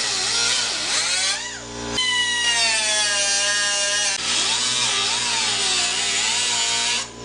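Small high-speed rotary tool with a cutoff wheel cutting into rusted sheet steel, a steady whine that dips and recovers in pitch as the wheel bites. It cuts off sharply near the end.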